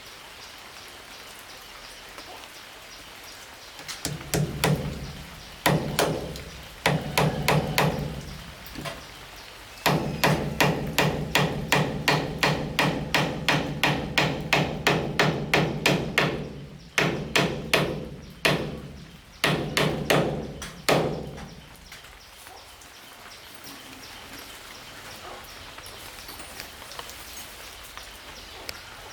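Hammer blows on wood in several runs. The longest is a steady run of rapid strikes, about three a second, lasting some six seconds, followed by shorter bursts.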